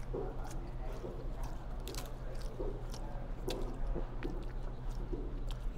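Soft handling sounds at the table: a crisp lettuce leaf rustling and crinkling as it is wrapped around a small crispy shrimp pancake, with scattered light clicks, over a steady low hum.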